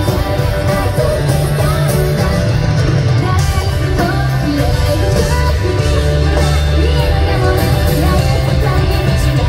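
Live rock band playing loud, with a sung lead vocal over electric guitar, bass and drums, recorded from the audience at a concert.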